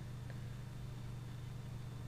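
Room tone: a steady low hum with a faint even hiss.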